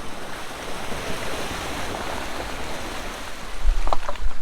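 Steady rushing, splashing water noise, with a few heavy low thumps about three and a half seconds in.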